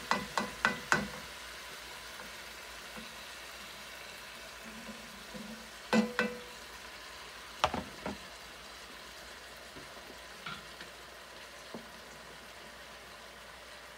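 Ground beef frying in an enamelled cast-iron Dutch oven with a steady faint sizzle as a plastic spatula breaks it up. A quick run of ringing taps of the spatula against the pot comes in the first second, with a few more knocks about six and eight seconds in.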